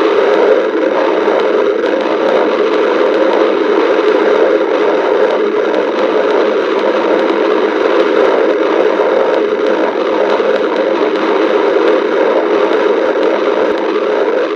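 Stomach growling: a loud, steady, unbroken rumbling with a fine, flickering texture and no pauses.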